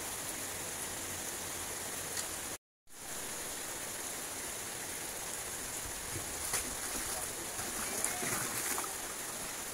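Steady rain falling, an even hiss, with faint voices in the background around eight seconds in. The sound drops out completely for a moment about two and a half seconds in.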